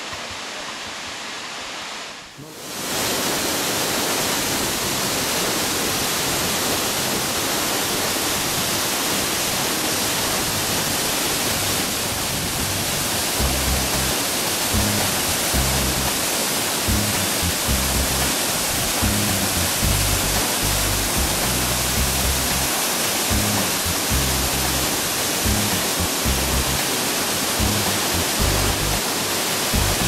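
Waterfall: a steady, dense rush of falling water that drops away briefly about two seconds in and returns louder and closer. Irregular low rumbling comes and goes through the second half.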